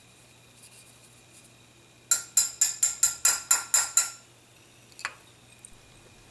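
Small brass-and-nylon-faced gunsmith's mallet tapping a pin punch against the steel receiver of an H&R Topper M48 shotgun, seating a pin: about nine quick, ringing metallic taps over two seconds, then one lighter click about a second later.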